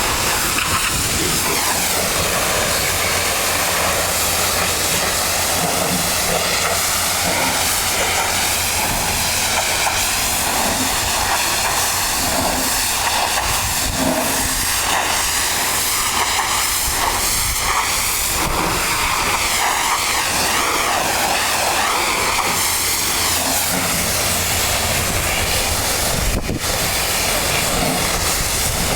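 Pressure washer spraying: a steady, loud hiss of the water jet over the constant low running of the machine, with one sharp click near the end.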